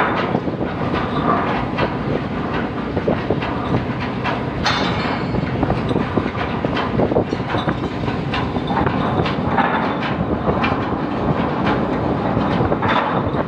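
Heavy steel anchor chain rattling and clanking without a break as it is heaved in, its links dragging and knocking over the steel deck in a dense run of metallic clinks.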